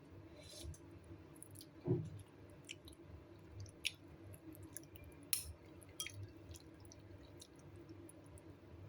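A person eating: faint chewing with scattered small clicks, and one dull knock about two seconds in.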